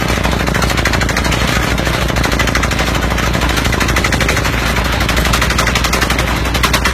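Pneumatic down-the-hole hammer of an industrial well-drilling rig pounding through hard rock: a loud, rapid, even hammering over a steady low drone.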